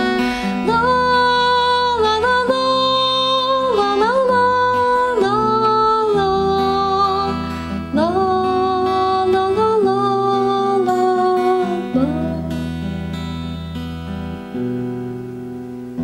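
A woman singing a melody of long held notes to a strummed acoustic guitar. The voice stops about three quarters of the way in, and the guitar goes on alone.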